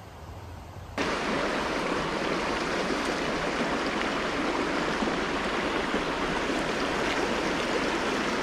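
A shallow, rocky mountain stream rushing over stones in a riffle: a steady water noise that comes in suddenly about a second in, after a quieter start.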